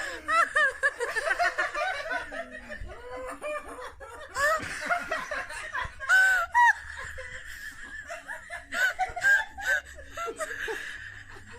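High-pitched giggling laughter in quick runs of short squeaky rising-and-falling notes.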